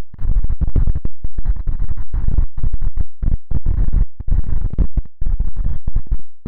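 Wind buffeting the phone's microphone: a loud low rumble that cuts in and out many times a second with brief dropouts, drowning out anything else.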